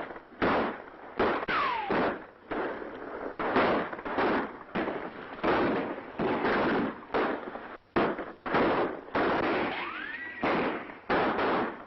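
Gunfire in a western shootout: a long string of irregular single shots, about one every half second to second. Two ricochet whines are heard, one falling about a second and a half in and one rising near the end.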